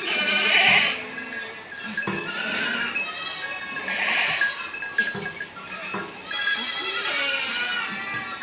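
Sirohi and Gujari goats bleating, with louder calls about half a second and about four seconds in, over background music.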